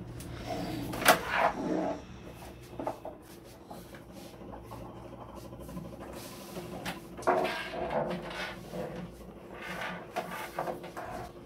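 Cables being handled and plugged in behind a computer monitor: scattered clicks, knocks and rustling against the monitor stand and desk, with a sharp knock about a second in.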